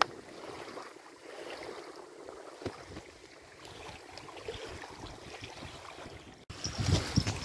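Wind on the open reservoir shore with small waves lapping at the water's edge. After a cut near the end, gusts buffet the microphone with a low rumbling.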